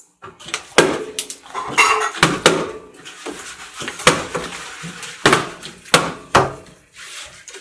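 Plastic water bottles partly filled with water landing on a glass tabletop as they are flipped: a string of about six or seven sharp knocks at uneven intervals.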